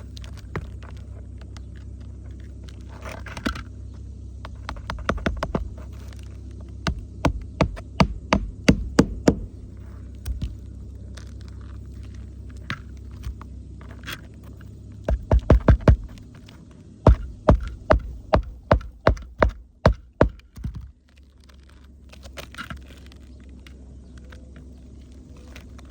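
Hammer driving roofing nails to re-fasten a lifted shingle: runs of sharp strikes, a few a second, in bursts about five to ten seconds in and again from about fifteen to twenty seconds in. A steady low hum runs underneath and drops away about twenty-one seconds in.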